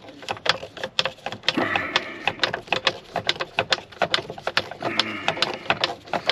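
Rapid, irregular clicking and rattling from a T20 Torx tool backing the last screw out of the plastic steering column cover, with a few faint squeaks.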